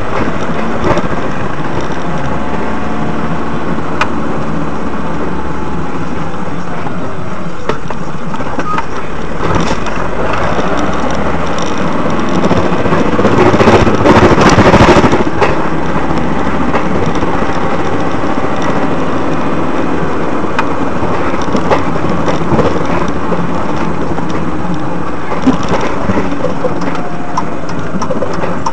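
Vehicle driving noise from a dash-cam recording: a steady rumble of engine and road with faint rising and falling engine tones, growing louder for a couple of seconds about halfway through.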